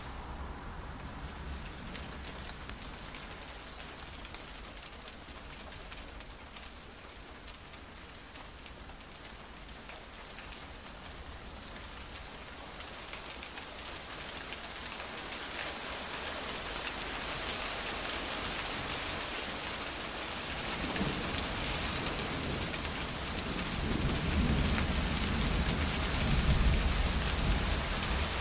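Rain falling steadily, growing heavier through the second half. A low rumble of thunder rolls in near the end.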